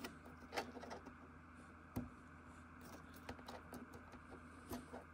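Faint, scattered small clicks and handling sounds of a plastic cable connector being worked into the socket on a 3D printer's stepper motor, the sharpest click about two seconds in, over a quiet room hum.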